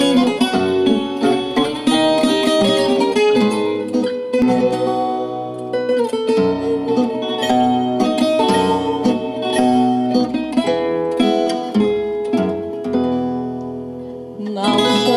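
Instrumental introduction of a fado karaoke backing track: plucked guitars play a melody over a bass line.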